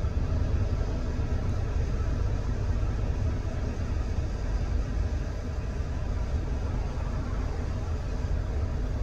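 Car cabin noise: a steady low rumble of engine and road heard from inside a car.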